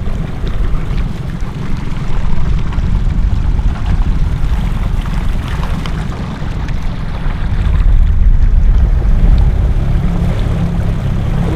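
A small outboard motor pushes an inflatable dinghy along at a steady speed, a loud, steady low rumble, with wind buffeting the microphone.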